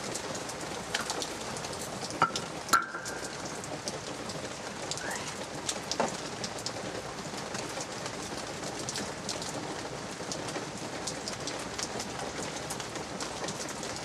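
Light rain falling and dripping as a steady hiss scattered with small ticks of drops. A few louder sharp knocks, one with a brief metallic ring, come about two to three seconds in and again near six seconds.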